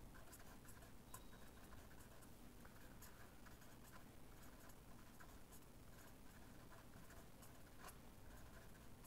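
Faint scratching of a pen writing words on paper, in short irregular strokes.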